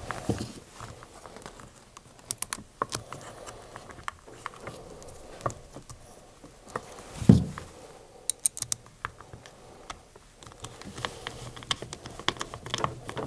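Small clicks and taps of hands handling plastic parts and wiring as a P-clamp is fitted around a pump's wiring harness and screwed to its plastic bracket, with one dull thump a little after halfway.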